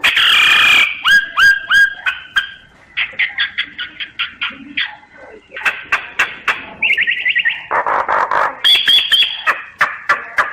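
Common myna singing a varied, fast run of harsh squawks, rattles and clear whistled chirps, with a loud harsh burst right at the start.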